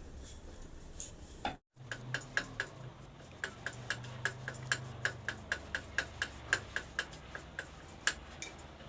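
Rolling pin clicking against a rolling board as naan dough is rolled out, several quick clicks a second in a steady rhythm, over a faint low hum.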